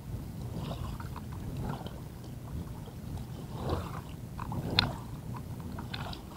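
Low rumble of wind and water around a small fishing boat, with scattered light clicks and knocks from a fishing rod and reel being handled and reeled, and one sharper click about five seconds in.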